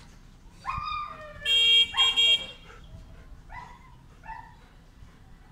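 German Shepherd whining in a few short, falling whimpers. Two loud, steady horn-like blasts sound about a second and a half in.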